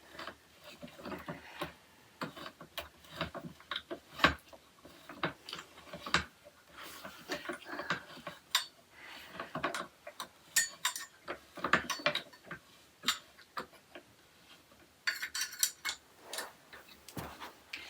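Parts of a flat-pack shoe rack being handled and fitted together: irregular small clicks and knocks, with a quick run of clicks near the end.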